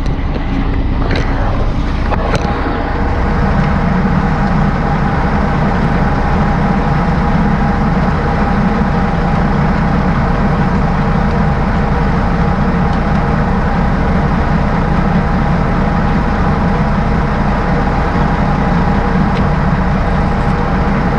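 Semi-truck tractor's diesel engine idling steadily, heard close by from the catwalk behind the cab. A few light metallic clicks come in the first couple of seconds.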